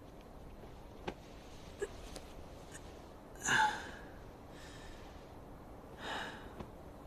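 A woman's sharp, effortful intake of breath with a brief voiced catch as she pushes herself up to sit in bed, about three and a half seconds in, then a softer breath about six seconds in. Two faint clicks come before it.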